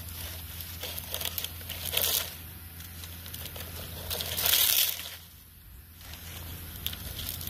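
Dry palm fronds and leaf litter rustling and crackling in bursts as crabs hiding beneath them are disturbed and grabbed by hand. The loudest burst comes about four to five seconds in, followed by a brief lull.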